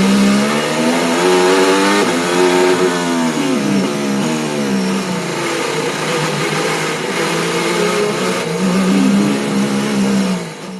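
Formula 1 car engine heard from the driver's seat, accelerating hard. The engine note climbs in pitch and drops back at each gear shift, several times over.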